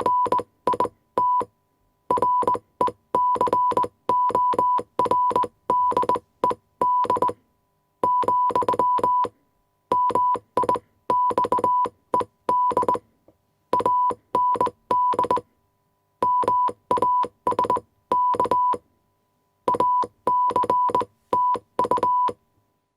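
Morse code transmission: a steady tone near 1 kHz keyed on and off in short and long beeps, each with a sharp click. The beeps come in groups separated by short pauses and stop near the end.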